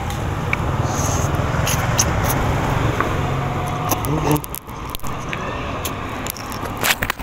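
Road traffic: motorbikes and cars driving past with steady engine and tyre noise, which eases off about four and a half seconds in. A few light clicks are heard over it.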